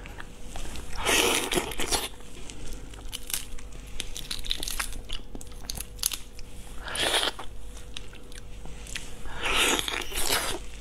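Shell of a large cooked shrimp cracking and crinkling as it is torn apart by hand close to a lapel microphone, with small clicks throughout and three louder crackling bursts. Near the end she bites and sucks at the head.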